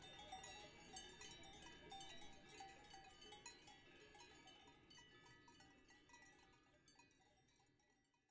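Many livestock bells clanging irregularly at different pitches, fading out to silence at the end.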